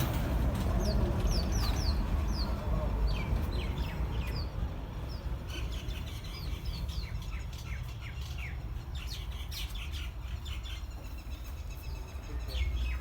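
Many short high chirps, irregular and repeated, over a steady low rumble.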